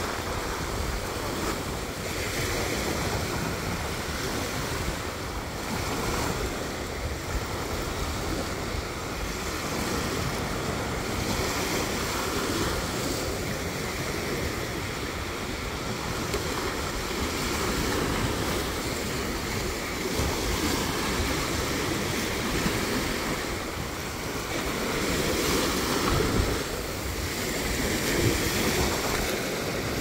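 Small waves washing in and out over a sandy shore, rising and falling slowly, with wind rumbling on the microphone.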